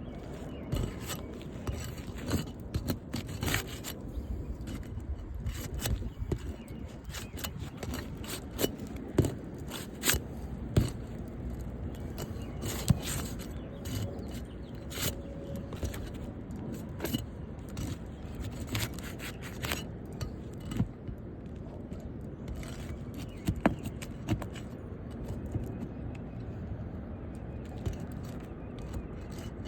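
A tool working loose asphalt roof shingles: irregular scraping with many sharp clicks and knocks, as the shingle seals are broken to remove a damaged shingle.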